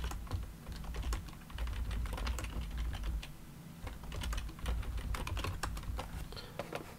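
Computer keyboard being typed on in quick runs of keystrokes, broken by short pauses.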